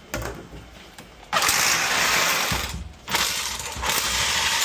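Loud, harsh grinding from the long masonry drill bit working in the hole through the wall. It comes in two stretches of about a second and a half each, with a short break between, starting about a second in.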